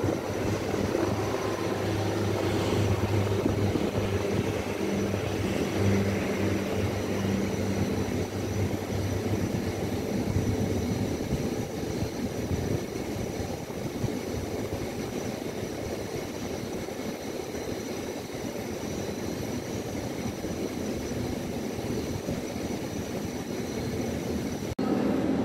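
ATR 72-500 turboprop engines and propellers running, a steady drone with a low hum that fades about halfway through. The sound changes abruptly just before the end.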